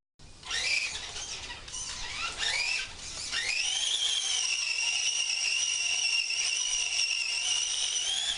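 Remote-control car's motor whining, pitching up in several quick rising sweeps, then held at a steady high whine that climbs slightly near the end.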